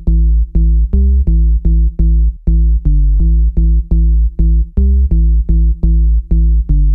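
Electronic background music: a pulsing synth bass line of short repeated notes, about four a second, with the drums dropped out.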